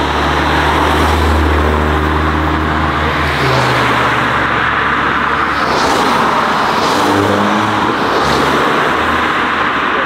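Volkswagen Golf cars driving past, their low engine note holding steady and then changing pitch a few times under a loud, steady rushing noise.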